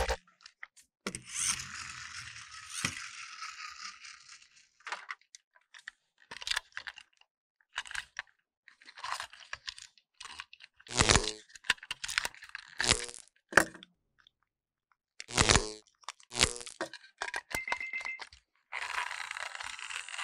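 Plastic toy engines handled and turned over in the hands: scattered clicks, crackles and snaps of plastic parts, a few of them louder in the second half, with a soft rushing noise about a second in and again just before the end.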